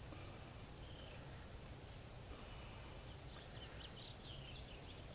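Steady high-pitched chorus of insects such as crickets, with a few faint short chirps in the middle.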